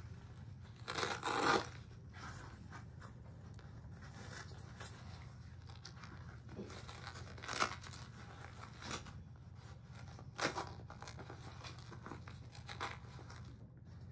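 Rustling, scraping and tearing noises of military field gear being handled close to the microphone, in short irregular bursts, the loudest about a second in. A steady low hum runs underneath.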